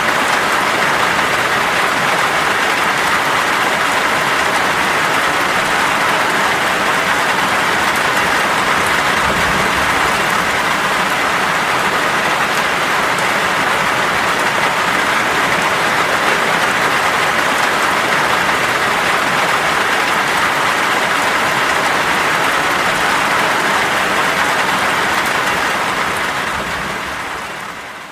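Heavy rain pouring down in a steady, dense hiss, fading out near the end.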